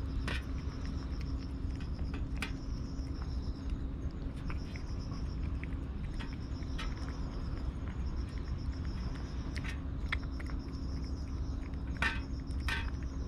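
An insect chirping in repeated high, pulsing trills, each about a second long with short gaps, over a low steady hum. A few sharp clicks come near the start and again near the end.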